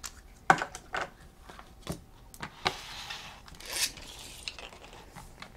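Hard plastic toy parts being handled: a few sharp clicks in the first two and a half seconds, then a longer rubbing scrape as a toy race car is fitted into its plastic launcher and a plastic ripcord is threaded through it.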